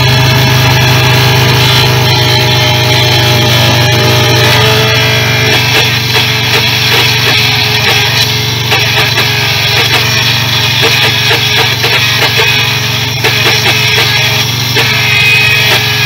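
2007 Dodge Caravan engine running, with the noise of its failing alternator: a steady drone under a mix of steady higher tones.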